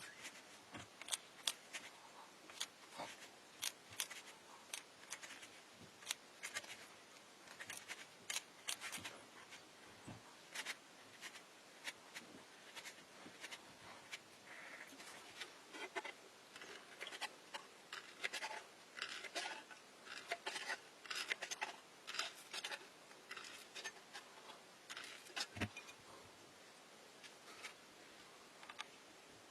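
Irregular small clicks and taps, with short snipping or scraping strokes, from hand work on craft materials; busiest past the middle and sparse near the end.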